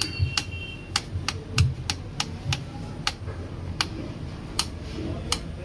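Small screwdriver driving a screw into a laptop's plastic bottom access cover, giving a run of sharp, evenly spaced clicks, about three a second.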